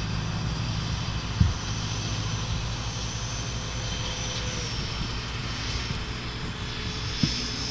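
Twin 70 mm twelve-blade electric ducted fans of a large foam RC airliner model whining steadily as it climbs out after takeoff. The whine is high with a lower tone under it, and both dip slightly in pitch about halfway through. A low rumble runs underneath, with two brief knocks, one about a second and a half in and one near the end.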